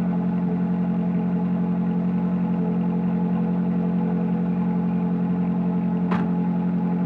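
Ferrari 458 Challenge's 4.5-litre V8 idling steadily. About six seconds in, a single sharp thud as the car's door is shut.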